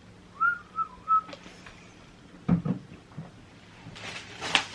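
Three short whistled notes, slightly gliding, close together, followed a second or so later by a single knock and then light rustling of handling.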